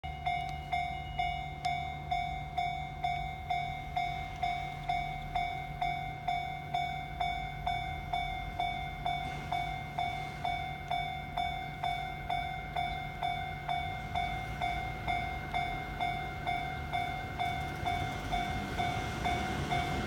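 Japanese level-crossing alarm ringing in an even, repeating ding, just under two a second. Underneath, the low running of an approaching KiHa 85 diesel railcar grows louder over the last few seconds.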